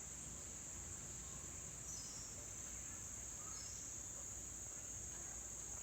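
Steady, unbroken high-pitched chorus of crickets or similar insects, with two faint short chirps about two and three and a half seconds in.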